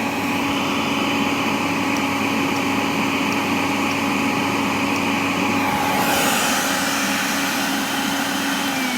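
Miele Revolution 5000 canister vacuum cleaner running steadily, a motor hum under a loud rush of air. At the very end its pitch starts to drop as the motor winds down.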